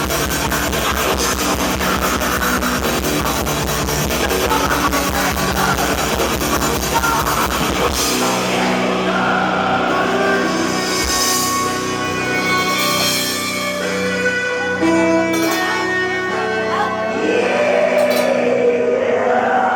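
Black metal band playing live: distorted guitars over fast, dense drumming. About eight seconds in the drums stop and held notes ring out as the song ends, with a bending note near the end.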